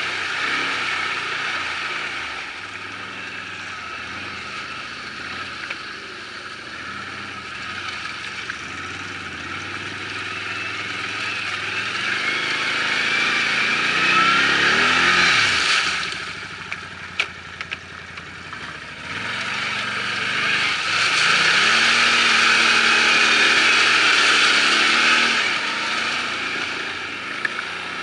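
ATV engine running under a rider on a muddy trail, revving up and easing off as the throttle changes. It runs harder in the middle and again in a long push later on, with a quieter dip in between that holds a few sharp knocks.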